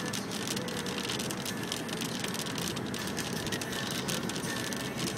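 Rain hitting a car's roof and windshield as a dense, irregular patter, over a steady low rumble of road and tyre noise inside the moving car.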